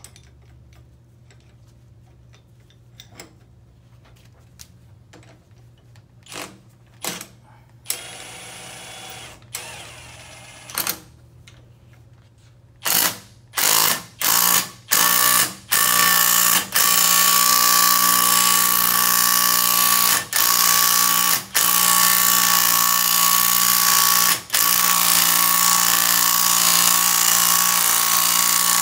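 Cordless power tool driving the forcing screw of a bearing puller to pull a bearing off a CVT secondary pulley shaft: a few short trigger bursts about halfway in, then running steadily with a few brief pauses. Before that, light clicks of metal parts being handled.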